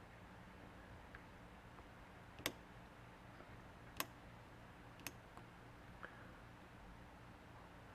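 Near silence with three sharp clicks a second or so apart, then a fainter fourth.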